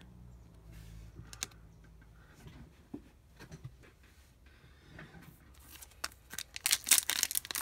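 Foil trading-card pack wrapper crinkling and crackling as hands work it open, starting about six seconds in after a few faint handling clicks.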